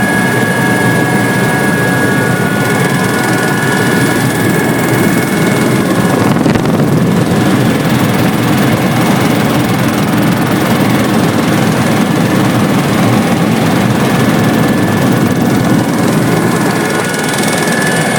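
Helicopter running steadily in flight: a loud, even rotor and engine noise, with a thin high whine that fades out after about six seconds and comes back near the end.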